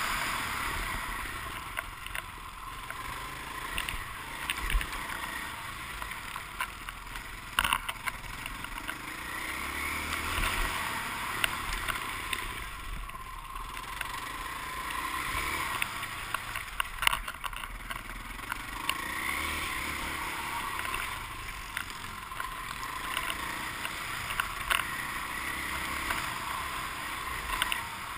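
Motocross bike engine being ridden hard on a dirt track: the pitch rises and falls repeatedly as it revs and shifts, with sharp knocks from the rough track now and then.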